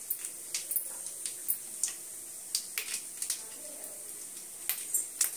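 Mustard seeds and urad dal in hot sesame oil beginning to splutter: scattered sharp pops at irregular spacing, a few a second, over a faint sizzle.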